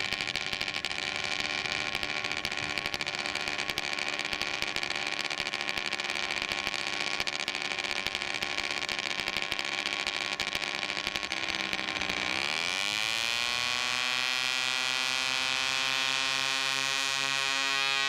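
Engines and rotors of two Aerovel Flexrotor VTOL drones running on the ground, a steady buzz with a fine rattle. About twelve seconds in they throttle up for takeoff: the pitch dips briefly, then rises sharply and holds at a higher, smoother tone.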